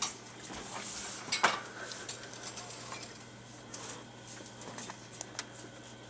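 Dishwasher wire racks and tub rattling and clinking as a cat moves around inside, a run of light scattered clicks with one sharp metallic clank about a second and a half in.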